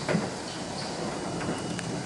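R42 subway car running along the track, heard from inside the car: a steady rolling rumble with a couple of sharp wheel clacks, near the start and near the end, as it passes over switches.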